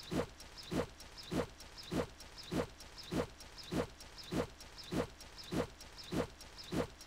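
A short snippet of the throwing scene's audio repeated in a stuttering loop about every 0.6 seconds, twelve times, each repeat a brief sound that falls in pitch.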